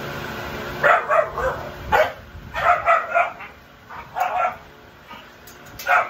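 American Bully puppies yipping and barking: a run of short, high calls in quick clusters, from about a second in to near the end.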